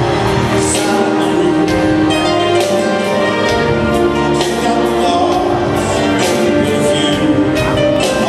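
Live concert music, a band playing with a singer, heard loud and distant from the crowd in an arena.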